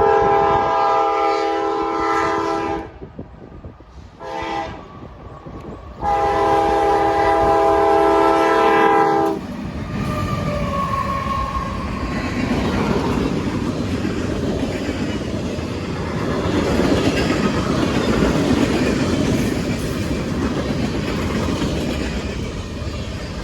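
A CSX freight locomotive's multi-note air horn blows a long blast, a short one and a final long one, the end of the grade-crossing signal. The train then passes close by with a steady rumble and the clatter of wheels over the rails.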